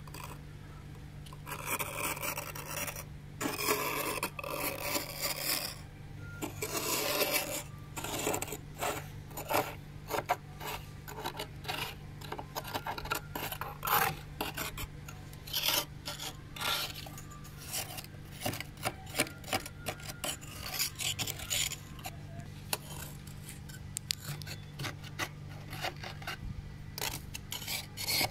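A flat metal spoon scraping and rasping through thick freezer frost. There are a few longer strokes in the first seven seconds or so, then many short, quick scrapes.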